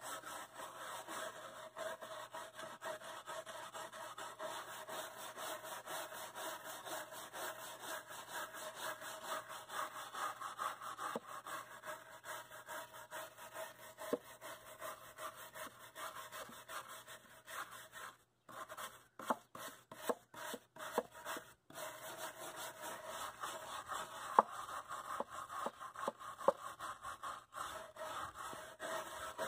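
A stiff bristle brush scrubs charred wood along the grain in quick back-and-forth strokes, brushing the loose char off a shou-sugi-ban-burned chair back. The scrubbing stops and starts for a few seconds past the middle, and a few sharp knocks come near the end.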